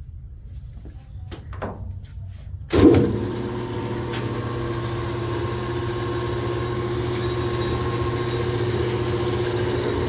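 Large commercial lathe switched on about three seconds in: a sudden loud start, then the motor and spindle running steadily with a level hum. It runs smoothly.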